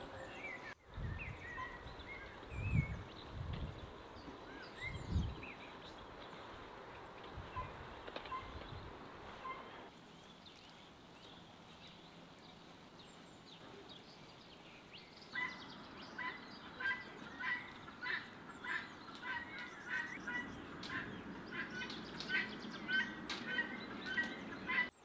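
Birds calling: scattered short chirps with a few low thumps over the first ten seconds, then, after a quieter lull, a quick string of short repeated calls through the last ten seconds.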